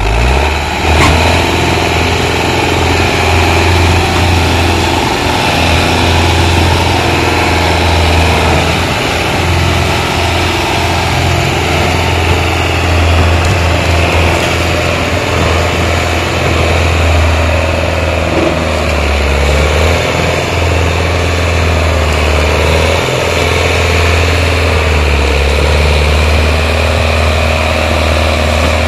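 Belarus tractor's diesel engine running steadily and hard under heavy load, pulling a trolley piled high with sugarcane.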